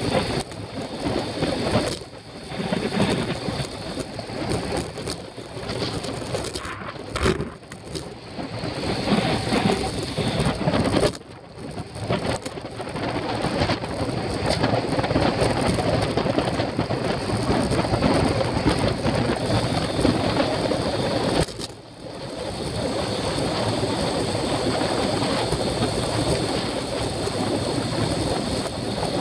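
Wind rushing over the microphone of a bicycle-mounted camera at race speed, with tyre and road noise underneath; the rush drops out briefly three times.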